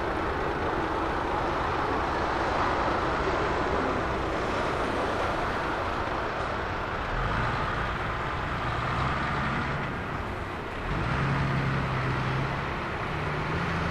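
Jet airliner engines giving a steady rushing noise, with a low hum joining in about halfway through.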